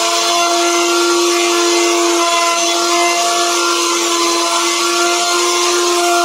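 Electric plunge router running at full speed as its bit cuts a carved design into a wooden panel: a steady whine that holds one pitch, over the hiss of the cut.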